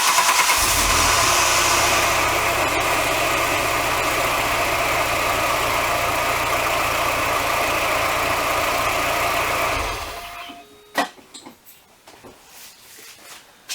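1995 Volkswagen Cabrio's four-cylinder engine started after an oil change and left idling steadily for about ten seconds, so the fresh oil circulates before the level is rechecked. It is then switched off, and a few light clicks follow.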